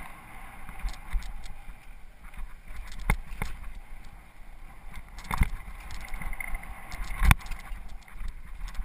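Mountain bike rattling over a rough, rocky trail, with a low rumble and several sharp knocks as the wheels hit rocks, the loudest near the end.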